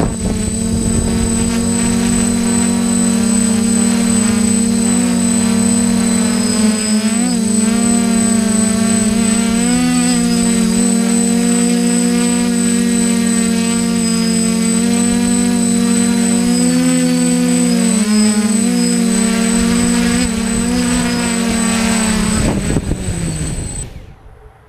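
Six electric motors and propellers of a DJI F550 hexacopter buzzing, heard from on board, the pitch wavering and shifting as the throttle changes in fast flight. Near the end the motors wind down and stop as it sits on the ground.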